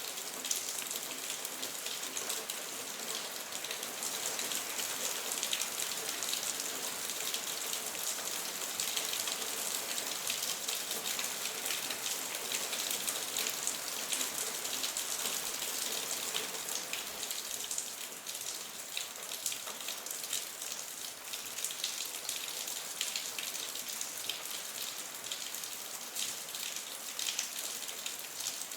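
Steady rain falling, an even hiss with many separate drop hits scattered through it.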